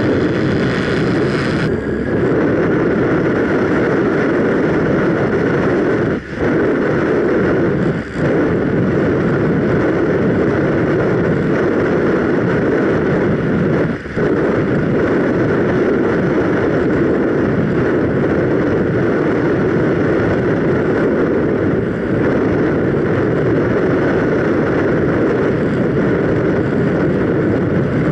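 Steady rushing airflow and motor noise of a ParkZone Radian Pro electric RC glider in flight, picked up by the camera riding on it. A higher hiss drops away about two seconds in, and the sound dips briefly three times.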